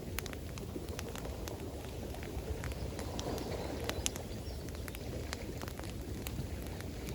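Campfire crackling with scattered sharp pops and snaps over a steady low rush of flowing water.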